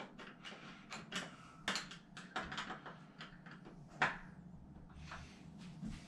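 Faint, scattered clicks and small scrapes from a screwdriver tightening the screws of a newly fitted door knob set, with a sharper click about four seconds in.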